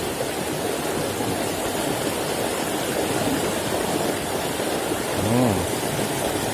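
Shallow rocky stream rushing and splashing steadily over stones. About five seconds in, a short vocal sound from a person rises and falls over it.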